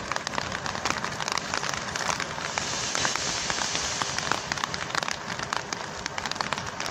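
Rain pattering on a surface close to the microphone: a steady, dense crackle of small drop hits.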